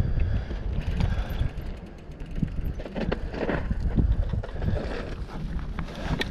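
Mountain bike rolling down a rocky, loose trail: tyres running over stones and the bike rattling, with scattered knocks and clicks, under a steady rumble of wind on the camera microphone.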